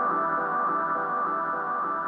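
Background music: ambient electronic music with sustained tones and a repeating pattern of notes.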